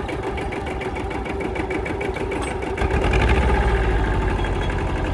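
A 16-horsepower compact tractor's engine running steadily as the tractor is driven. About three seconds in it grows louder, with a heavier low rumble.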